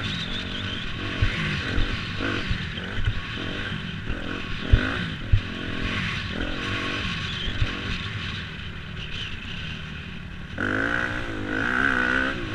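Suzuki RM-Z250 motocross bike's single-cylinder four-stroke engine revving up and down repeatedly as it is ridden over the track, with a few sharp thumps in the first half. Near the end it revs louder and higher.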